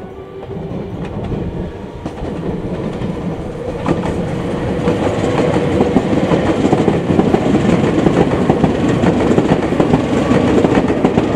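Meitetsu six-car electric train, a 3100 series leading a 2000 series μSKY, pulling out of the station and running past. It grows steadily louder as it nears, with its wheels clattering over the rail joints and points.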